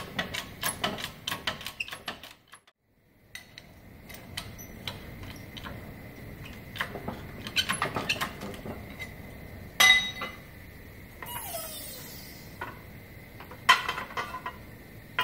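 Steel rib and press tooling clinking and knocking together as the bent sheet-metal rib is handled and pressed in a benchtop shop press: scattered light metallic clicks, with two louder knocks in the second half.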